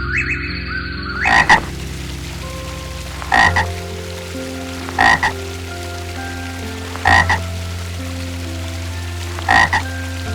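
A frog croaking five times at intervals of about two seconds, each croak a short double call.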